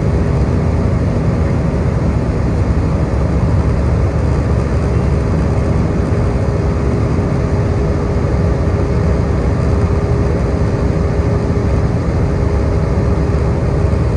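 Steady roar of engines and rushing air heard inside an Airbus A320's passenger cabin in flight after takeoff, with one steady hum running through it.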